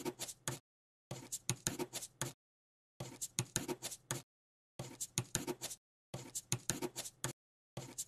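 Writing sound: quick scratching strokes of a pen on paper, in bursts of about a second separated by short gaps of dead silence.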